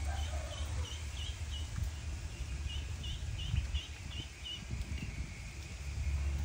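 Young ducks peeping: two quick runs of short, high peeps, five or six in each, over a low steady rumble.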